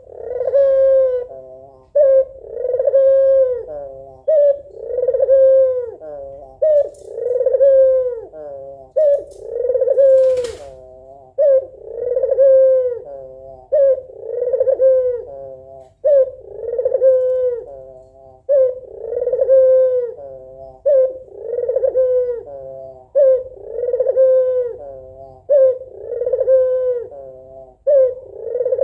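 White Barbary dove (domestic ringneck dove) cooing over and over, one coo about every second and a half, each dropping in pitch at its end. It is a female's call to a male.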